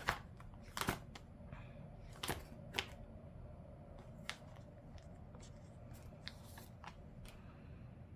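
Paper being handled: short rustles and light taps of sticker sheets and planner pages, coming irregularly about once a second, the sharpest in the first three seconds.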